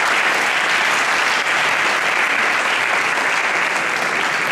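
Audience applauding: a dense, steady clapping of many hands in a hall, at a loud, even level.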